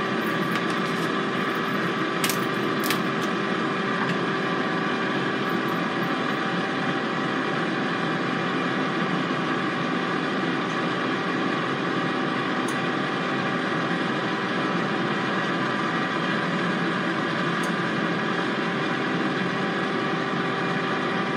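Air fryer fan running with a steady, even hum while it cooks at 400 degrees. A couple of light clicks come about two to three seconds in.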